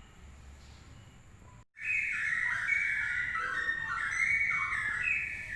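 Straw-headed bulbul (cucak rowo) song: a run of loud, fluty whistled notes stepping quickly up and down in pitch, starting abruptly about two seconds in after a faint stretch.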